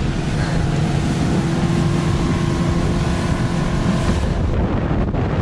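Four-stroke outboard motor running at speed on a small skiff, a steady hum under heavy wind noise on the microphone and water rushing past the hull. About four seconds in, the engine's steady note drops away and the wind noise takes over.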